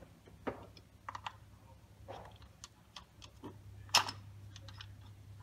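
Hard plastic clicks, taps and rattles as a wireless backup-camera monitor in its sunshade is handled and assembled with its antenna and mount, with one sharp, louder click about four seconds in.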